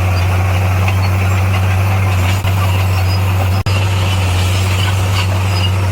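Komatsu D58P crawler bulldozer's diesel engine running steadily under work, a deep, even drone. The sound drops out briefly twice, about two and a half and three and a half seconds in.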